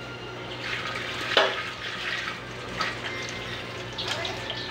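A pan of squid and eggplant frying on the stove, with a few sharp clicks over it. The loudest click comes about a second and a half in.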